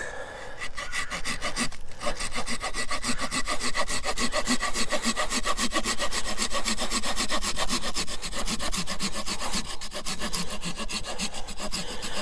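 Small folding hand saw cutting through a seasoned hardwood branch, maple by the owner's guess and possibly oak, in rapid, even back-and-forth strokes with a brief pause about two seconds in.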